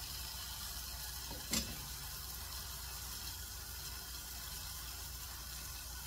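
Chicken, onions and curry powder frying under a glass lid, a steady soft sizzling hiss muffled by the cover, with one light tap about one and a half seconds in.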